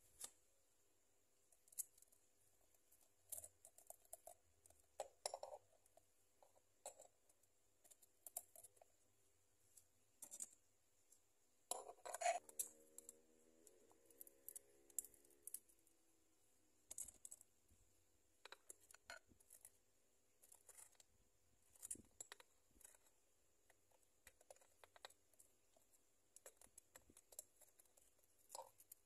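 Metal tweezers clicking and scraping against small rocks, driftwood and soil while arranging a terrarium's hardscape: faint, scattered sharp clicks and taps at irregular intervals, with one louder clatter about twelve seconds in.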